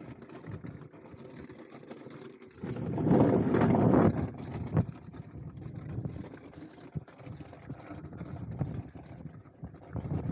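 Wind buffeting a helmet-mounted microphone while ice skate blades run over rough lake ice, with a louder gust about three seconds in and a few short clicks from the blades.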